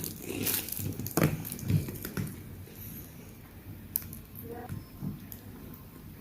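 Close-up eating sounds: a person chewing rice and pindang fish, soft wet squishing with a few sharp clicks, busier in the first couple of seconds, then quieter.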